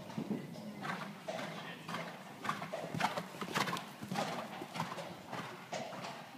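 Bay horse's hoofbeats in canter on a sand arena surface, loudest about three to four seconds in as it passes close.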